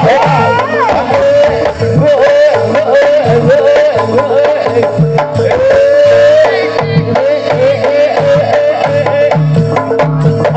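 Live Javanese jaranan (barongan) music, loud through a sound system: kendang hand drums beat a busy rhythm under a wavering, ornamented melody over a steady held tone.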